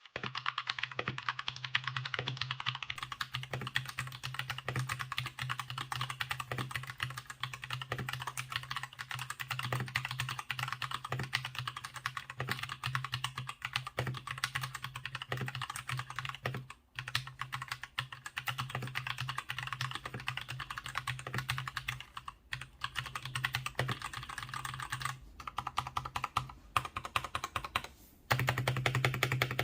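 Mstone Rookie 68BT mechanical keyboard being typed on fast and continuously: a dense stream of key clicks, broken by a few brief pauses.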